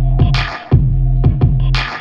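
Electronic dance music with a heavy, sustained bass and a thumping beat, and a hissing noise burst twice.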